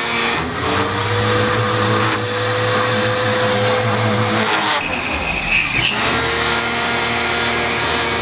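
Split-type air conditioner unit running: a steady motor hum with a fan's rushing noise. The hum breaks off about four and a half seconds in and resumes about a second and a half later.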